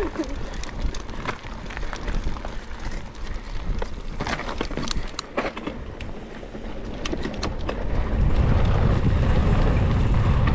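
Mountain bike ridden over rough cross-country trail, with scattered clicks, knocks and rattles from tyres and frame over bumps. About eight seconds in, a steady, louder wind rumble on the microphone sets in as the bike picks up speed.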